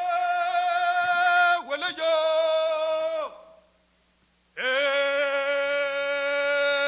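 A man's voice chanting long, held notes. The first call breaks briefly after about a second and a half and falls away after about three seconds. After a pause of about a second, a second call scoops up into pitch and holds steady.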